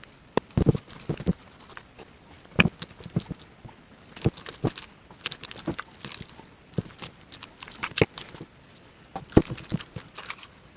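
Irregular clicks, taps and crinkles from handling slime-kit materials on a tabletop, several quick knocks a second at times.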